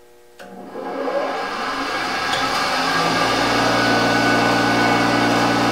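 Bench grinder switched on with a click, its motor spinning up to speed over a couple of seconds and then running steadily with a hum.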